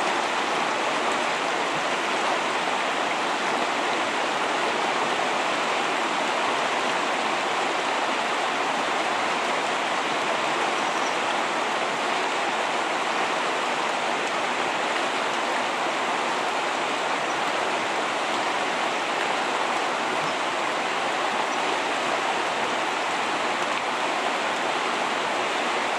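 River water rushing steadily over shallow riffles.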